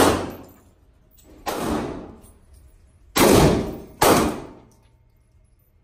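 Four gunshots on an indoor shooting range, each followed by a short echo off the concrete walls: one at the very start, another about a second and a half later, then two close together around three and four seconds in.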